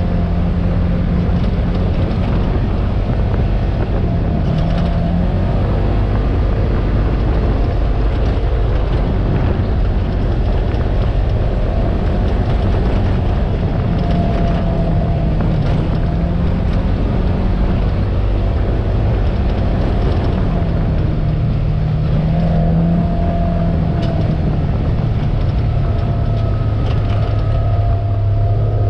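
Polaris General UTV's engine running under way, its revs rising and falling several times.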